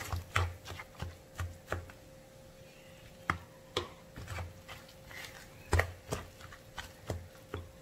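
A white spoon stirring a thick, lumpy batter of flour, egg and corn kernels in a plastic bowl, giving irregular sharp taps and knocks as it hits the bowl's side, about two a second. A faint steady hum runs underneath.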